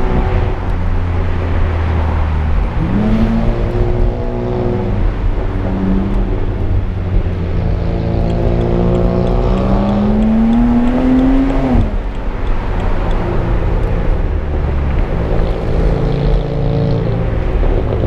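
BMW Z4 35is's twin-turbo straight-six engine running on the move over steady road and tyre noise. The engine note climbs for a few seconds from about the middle and then drops suddenly, with a shorter rise-and-fall earlier on.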